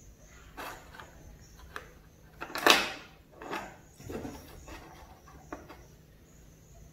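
Handling noises from a plastic bank card on its clear stand and the paperwork around it: a few light knocks and rustles. The loudest is a short rustling burst near the middle.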